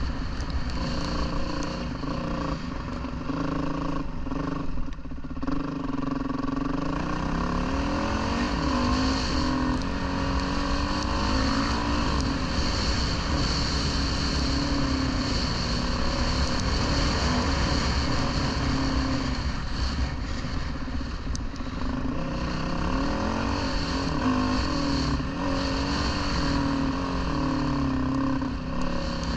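Dirt bike engine running under way, its pitch rising and falling again and again as the rider opens and closes the throttle and changes gear.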